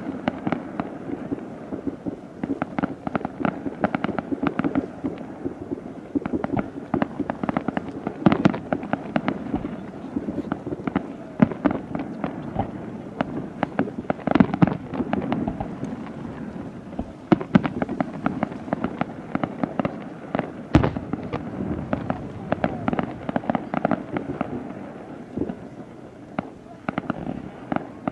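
Fireworks display going off: a continuous rapid crackle of many sharp pops and bangs, with a heavier, deeper bang about 21 seconds in.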